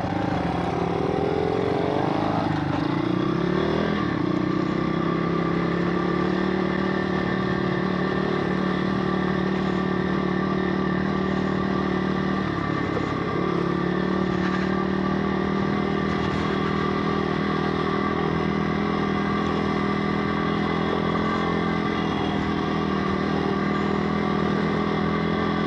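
Pit bike engine heard on board, revving up over the first few seconds as the bike accelerates, then running at a steady speed along the track.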